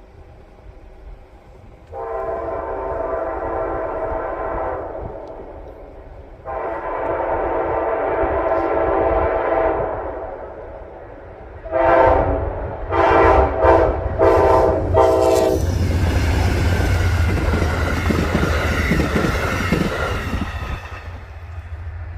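Amtrak locomotive horn sounding two long blasts, then four short ones in quick succession, over a low engine rumble. The train then passes close by in a loud rush of wheels on rail that fades near the end.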